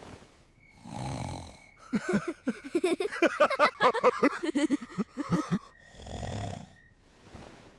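Cartoon character snoring: a breathy intake, then a long rattling snore of rapid pulses lasting over three seconds, then another breath.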